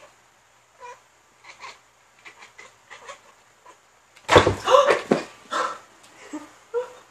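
Tabby cat chirping and chattering at a fly it is hunting: short quiet chirps at first, then a louder run of short, arching calls from about four seconds in.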